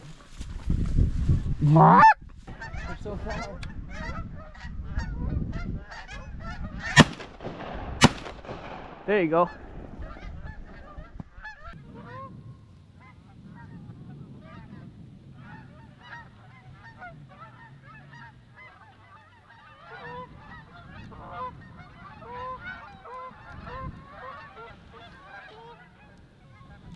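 A flock of geese honking overhead, many calls overlapping. The calls are louder and closer in the first ten seconds, with two sharp bangs about a second apart around seven seconds in; after that a larger flock keeps up a softer, steady chorus of honks.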